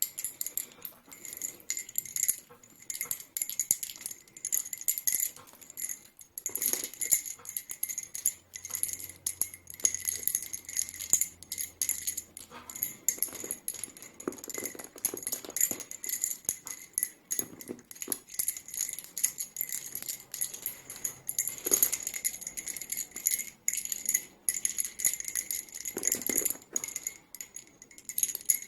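Palo violeta wooden lace bobbins by Carmelo Badalona clicking and clattering against each other in quick, irregular runs as they are crossed and twisted in bobbin-lace making.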